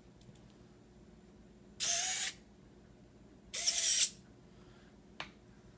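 Servo-driven retractable landing gear on a DJI F450 quadcopter frame, worked from the transmitter switch: the retract servos whir twice, each run about half a second long and about a second and a half apart, as the legs swing. A light click follows near the end.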